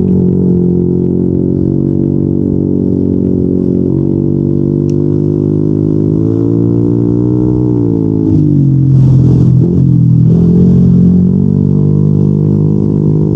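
Yamaha NMAX 155's single-cylinder four-stroke engine running through a Yoshimura RS2 aftermarket exhaust with a steady deep drone. About six seconds in the pitch sags as the throttle is eased off. It then picks up and grows louder for a few seconds as the throttle is opened again.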